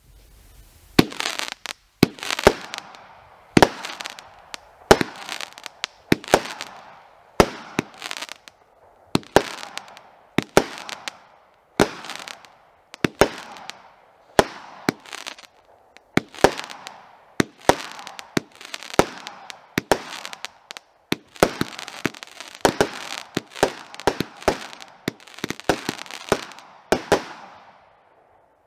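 'Hostile Takeover' 25-shot consumer fireworks cake firing in sequence: a string of sharp bangs about one a second, each trailing off in a short crackle from the glitter bursts. Near the end the shots come faster and overlap in a finale, then stop.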